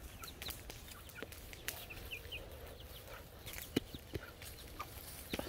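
Small flock of chickens foraging, clucking softly, with short high chirps scattered throughout and a few sharp clicks near the end.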